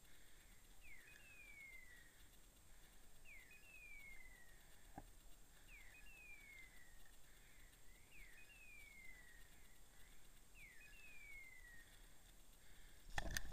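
A pointing dog's beeper collar in point mode, sounding faintly and at an even pace about every two and a half seconds: a short rising chirp, then a falling whistle. This is the signal that the dog is standing on point. A few faint cracks and rustles come near the end.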